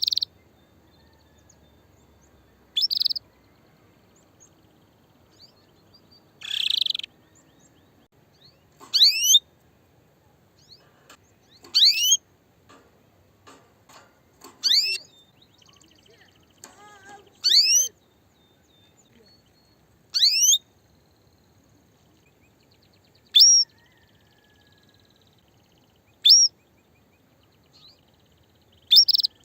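Female canary giving its mating call: short, sharp sweeping chirps repeated about every three seconds, the call of a hen ready to breed.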